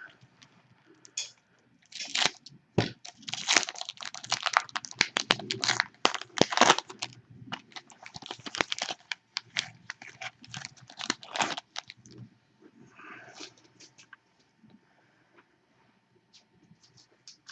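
Trading-card pack wrappers being torn open and crinkled by hand, a dense run of crackling and tearing, then quieter, sparser crinkles near the end as the handling eases off.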